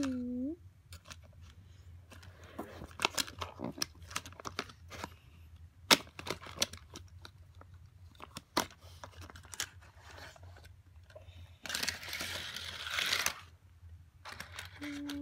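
Plastic toy parts clicking and knocking as a toy garbage truck is handled on a plastic playset, with a scraping rattle lasting about a second and a half near the end.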